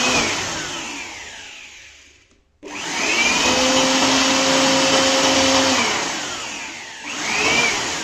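Jakmister handheld electric air blower running loud in bursts. The motor whine rises as it spins up and falls away as it coasts down: once near the start, then a longer steady run in the middle, and once more near the end.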